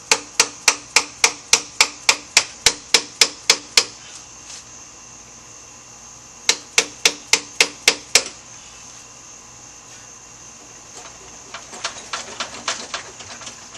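Hand hammer striking metal with fast, even, ringing blows, about three or four a second. A run of a dozen or so blows is followed by a pause, then a shorter run of about seven, then lighter, uneven taps near the end.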